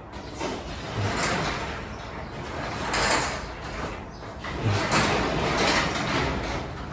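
Newly installed sectional garage door being rolled along its tracks, a rolling, rumbling run of rollers in the track that swells and eases in several long passes. It runs smoothly, "like butter".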